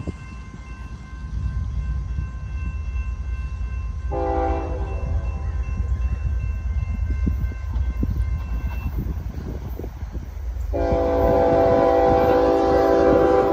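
Train horn sounding from an approaching train: a short blast about four seconds in, then a longer, louder blast near the end, over a steady low rumble.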